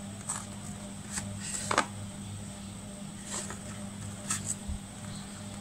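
Cardboard box being handled and turned over: a few brief scuffs and taps at irregular moments, the clearest just under two seconds in, over a faint steady hum.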